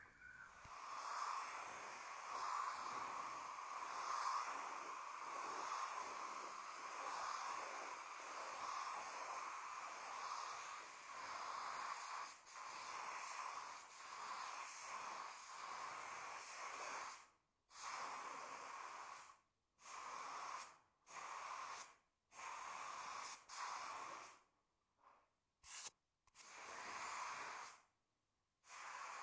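Compressed-air paint spray gun spraying paint: a long continuous hiss, then a run of short one-to-two-second bursts with gaps between as the trigger is pulled and released.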